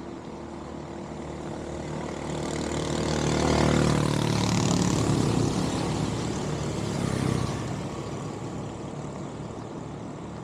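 A motor vehicle passing by: its engine noise builds over a few seconds, peaks in the middle with a falling pitch, then fades away.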